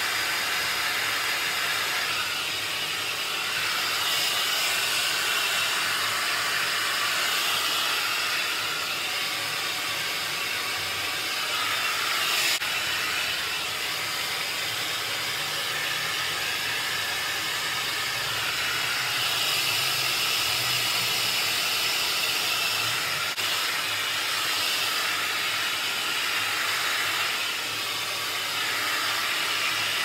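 Handheld hair dryer blowing steadily while drying hair, a continuous rush of air that swells and eases slightly in places.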